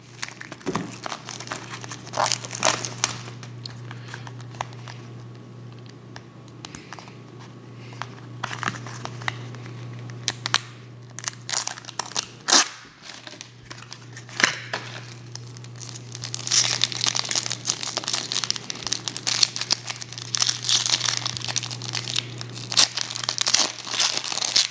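Foil wrapper of a trading card pack crinkling and tearing as it is opened, with cards being handled; scattered crackles at first, then dense, continuous crinkling through the last third.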